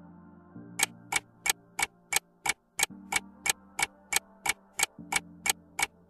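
Countdown-timer ticking sound effect, sharp clock-like ticks about three a second, starting just under a second in, over soft sustained background music.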